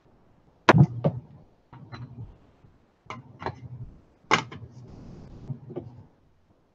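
Parts of a WK180c rifle being handled and fitted together: a series of sharp metal clicks and knocks, loudest about a second in and again a little past four seconds.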